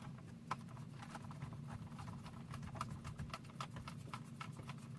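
Irregular small clicks and taps of plastic console trim and wiring being handled and pushed into place, several a second, over a faint steady low hum.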